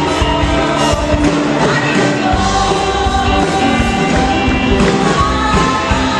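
Live praise and worship band playing: several singers over electric guitars, bass guitar, keyboard and a drum kit, at a steady loud level.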